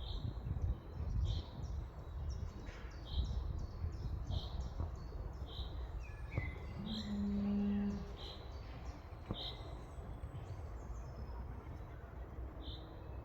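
Birds chirping outdoors, one short call repeated about once a second, over a low rumble of wind or background noise. A little past the middle a single low, steady call or tone lasting about a second stands out, the loudest sound.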